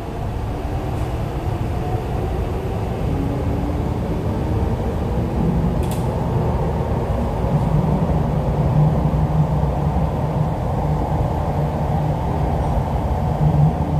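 Interior of an MTR East Rail line R-Train electric multiple unit in motion: a steady low rumble of wheels and running gear, with a low hum coming up more strongly about halfway through, and one brief click a little before that.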